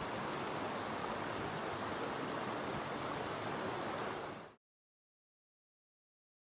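Steady rush of a flowing river, fading out about four and a half seconds in to complete silence.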